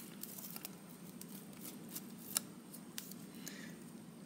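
Faint, scattered clicks and taps of kitchen items being handled during food prep, with one sharper click about two and a half seconds in and a brief soft rustle near the end.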